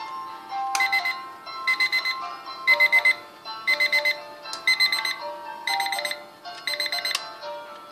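Mini alarm clock's electronic alarm beeping: seven bursts of rapid high-pitched beeps, about one burst a second.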